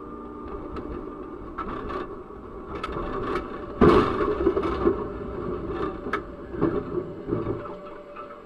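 Tram cab running along its tracks with rattles and clicks, then a loud crunching impact about four seconds in as a car collides with the tram. Scraping and a few more knocks follow.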